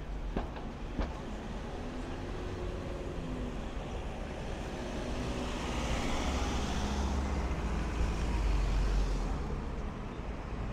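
City street traffic, with a van driving past close by: engine and tyre noise builds to a peak about eight to nine seconds in, then eases off. Two short clicks sound near the start.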